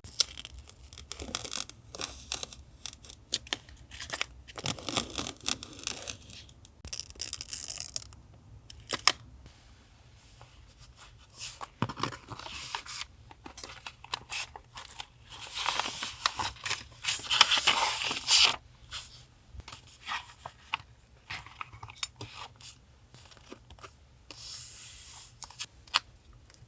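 Paper being torn and handled, heard as a run of short rips and rustles with a longer stretch of tearing a little past the middle.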